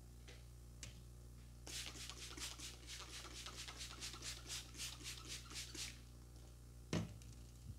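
Gloved hands rubbing a cream scrub over a face in quick, even strokes, about four a second, for around four seconds. A dull thump follows near the end.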